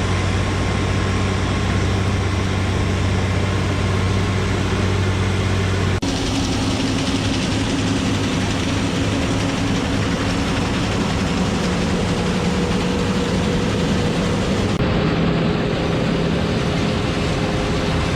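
A John Deere combine harvester's engine running steadily under a broad mechanical hum. The sound changes abruptly twice, about six and fifteen seconds in.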